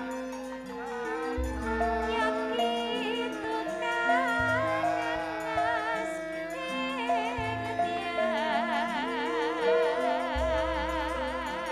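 Javanese gamelan music: bronze metallophones play a steady melody, punctuated by a deep gong stroke about every three seconds. A woman's voice sings with a wavering vibrato over it, most prominently in the last few seconds.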